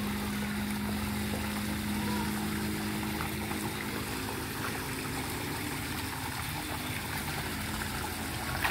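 Pumped return water from a recirculating filter splashing steadily out of a pipe onto the surface of a small fish pond. A low steady hum sits underneath for the first three to four seconds.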